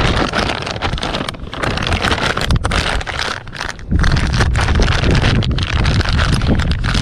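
Wind buffeting the microphone in gusts, with a plastic bag crinkling and rustling as it is handled.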